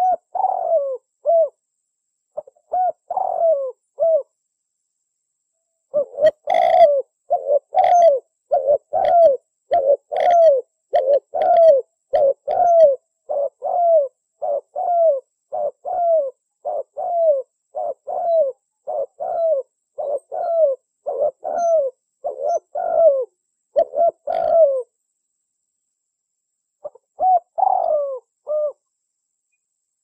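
Spotted dove cooing: short phrases of falling coo notes, then a long run of repeated coos with a short gap between each, and a pause before one more phrase near the end.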